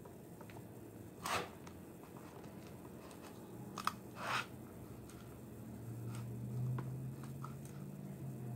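Cardboard toy packaging being handled: two short crinkling scrapes a few seconds apart, a sharp click and a few light ticks. A low steady hum comes in about six seconds in.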